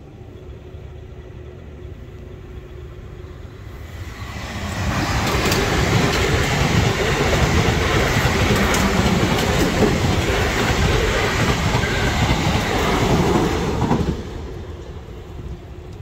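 Two coupled Class 444 electric multiple units passing on the railway. The sound builds from about four seconds in, stays loud for about nine seconds, and drops away sharply as the last carriage clears, about fourteen seconds in.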